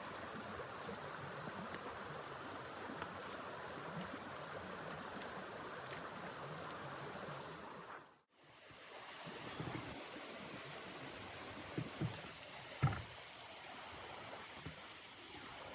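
Steady rushing blizzard wind, dropping out for a moment about eight seconds in, with a few soft knocks near the end.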